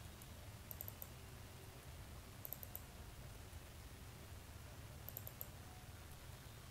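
Faint clicking of a computer keyboard in three quick groups of about four clicks each, over a low steady hum.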